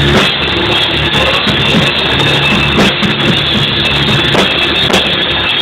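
A loud live rock band playing with an upright bass, the bass notes changing underneath a dense wash of sound. It is recorded on a phone, so the top end is cut off.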